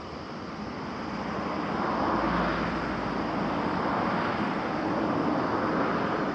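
A vehicle passing close by: a rushing rumble that swells from about a second in, holds loudest for a few seconds, then starts to fade.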